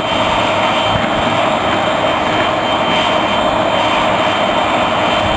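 Electric air-mattress pump running steadily as a homemade coal forge's blower: a constant motor whine over the rush of air through the burning coal.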